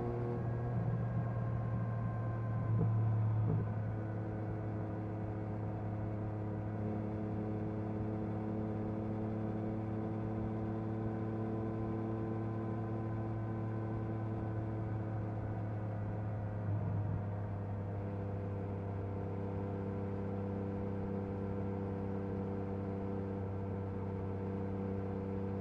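2022 Yamaha MT-09 SP's inline three-cylinder engine running through an Akrapovič carbon exhaust at a steady cruise. The engine note shifts to a new pitch twice, about three seconds in and again around seventeen seconds in, each with a brief swell in loudness.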